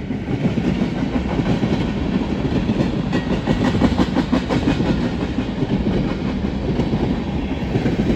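A train passing close by: a steady rumble with the rhythmic clickety-clack of its wheels over the rails.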